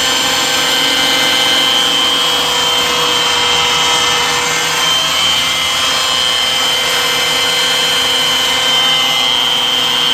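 Electric drill running steadily with a high whine, turning a small-block Chevy oil priming tool that drives the oil pump of a new 4.3-liter Vortec V-6, pushing cold, thick oil up to the rocker arms.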